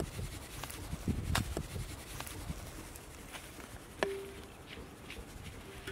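Scattered light clicks and taps of a plastic plate and spice powder being tipped onto raw fish pieces in a steel pot, with one sharper click about four seconds in.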